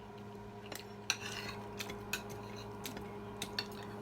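Cutlery clinking and scraping on plates during a meal, in scattered sharp clicks about every half second, over a steady low hum.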